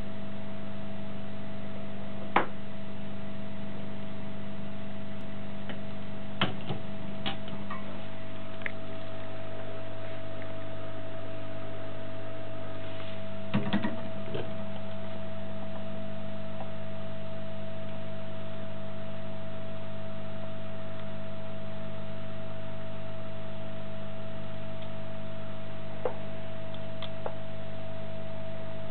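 Steady electrical hum with a few faint, scattered clicks and taps.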